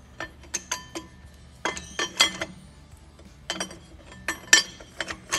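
Steel clutch plates of a Top Fuel dragster clutch pack clinking against the clutch stands and dummy shaft as a floater plate is worked onto the stack by hand. A dozen or so irregular metallic clinks come in small clusters, some ringing briefly.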